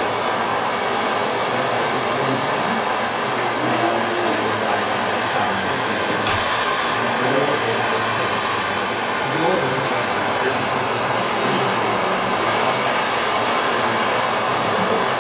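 Handheld BernzOmatic gas torch burning with a steady rushing hiss, its flame heating brass to tin it with solder.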